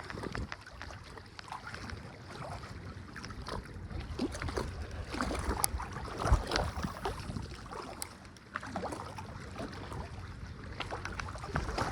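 Wind and water noise around a small fishing boat, with scattered small knocks and a low thump about six seconds in.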